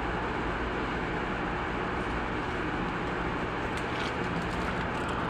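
Steady mechanical running noise, a constant hum and hiss that holds level without rising or falling, with a few faint light ticks about four seconds in.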